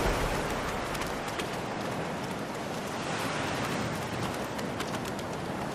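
Surf washing in over a rocky shore: a steady hiss of foaming water, with a few faint ticks and splashes.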